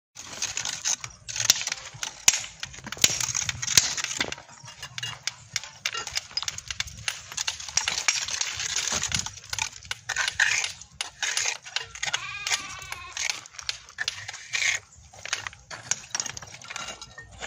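Steel trowel scraping and tapping wet cement mortar across the top of a stone-clad pillar, a run of repeated scrapes and sharp clinks. A wavering bleat is heard about two-thirds of the way through.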